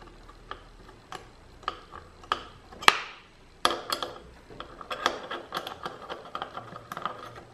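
Metal Allen key clicking in a clamp bolt as the bolt is turned by hand, one sharp click about every half second, the bolts being done up evenly on the end cap clamps. From about three and a half seconds in, the clicking becomes denser, mixed with handling clatter and rustle.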